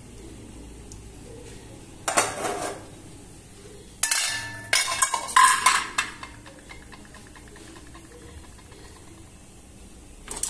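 Dishes and utensils clattering: one short burst about two seconds in, then a busier run of knocks and ringing clinks between about four and six seconds, over a low steady background.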